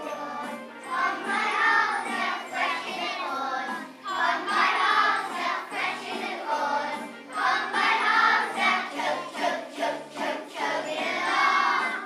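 A group of young children singing together over a musical accompaniment, in sung phrases about three seconds long.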